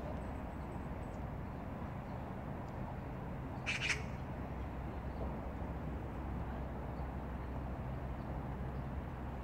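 An Oriental magpie gives one short, harsh call about four seconds in, over a steady low background rumble.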